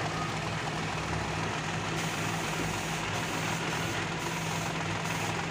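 Maruti Suzuki Alto 800's three-cylinder petrol engine idling steadily.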